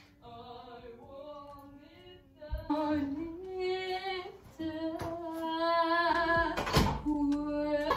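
A woman's singing voice carrying a melody with long held notes, soft at first and louder from about two and a half seconds in. A single sharp thump about a second before the end is the loudest sound.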